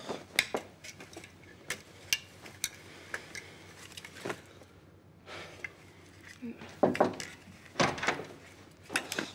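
Glassware and crockery being handled: a dozen or so light clinks and knocks, irregularly spaced, as a glass of water is got ready.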